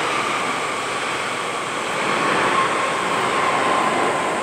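Arriving Boeing 777 jet airliner's engines: a steady jet rush with a whine that slowly falls in pitch as the aircraft passes.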